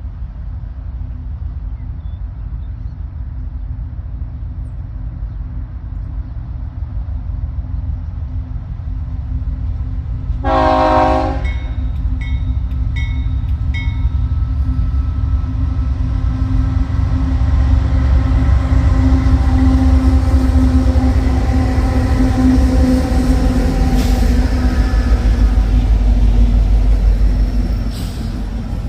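A passing train: one short locomotive horn blast about ten seconds in, followed by a few quick high rings. The locomotive's rumble then builds loud, holds, and drops off near the end.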